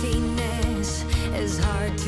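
Background pop music with a melody over a steady beat of about two drum hits a second.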